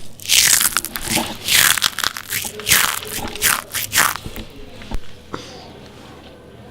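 A series of about seven loud crunches, roughly two a second, made for a Foley effect; they stop about four seconds in, and a single small click follows about a second later.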